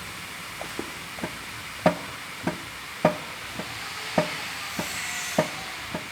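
Repeated metallic knocks, a loud one about every second with lighter ones between, as the crankshaft of a Chevrolet Spin 1.8 8-valve engine is worked back and forth: play in worn crankshaft main bearings. A steady hiss runs underneath.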